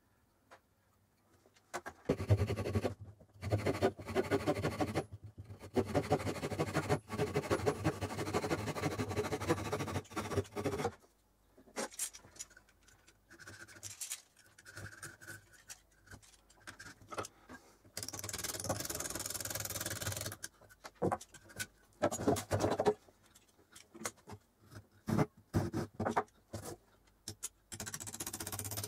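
Hand tools scraping and cutting a wooden hammer handle clamped in a vise. A long stretch of rapid, rough scraping strokes is followed by shorter separate cuts and scrapes, with one longer hissing stroke in between.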